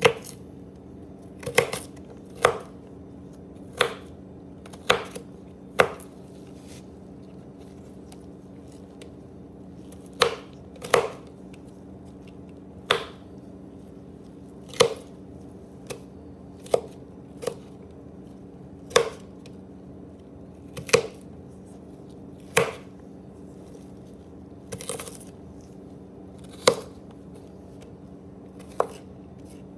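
Kitchen knife chopping celery on a thin plastic cutting mat over a wooden board: single sharp knife strikes every second or two, with a pause of a few seconds early on, as the celery is diced finer. A faint steady hum sits underneath.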